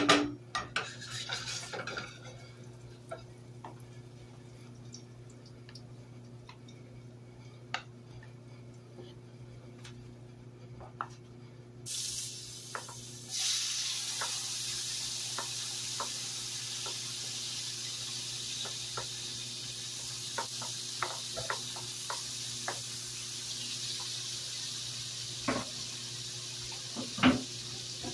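A wooden spoon knocks against a nonstick frying pan. About twelve seconds in, diced tomato and green pepper slide off a cutting board into the hot oil and start sizzling, the sizzle turning steady and louder a moment later. A few light utensil knocks on the pan come near the end.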